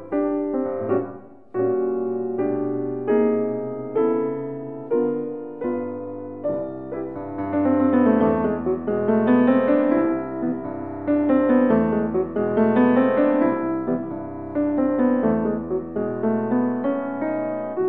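Solo piano playing a slow, lyrical piece: struck notes and chords that ring and fade. The playing grows fuller and louder from about seven seconds in.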